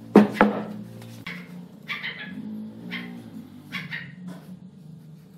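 A heavy block of wood set down on a wooden workbench: two solid knocks right at the start, then lighter scrapes and taps as a steel square and ruler are laid against the block, over a low hum.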